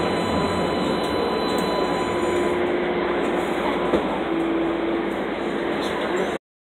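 Inside a moving El Paso restored PCC streetcar: steady running noise with a constant hum. The audio cuts out abruptly for a moment near the end.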